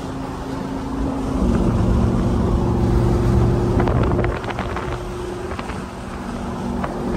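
Motorboat engine running, with wind buffeting the microphone. The engine gets louder and changes pitch about a second and a half in, then eases off a little after four seconds.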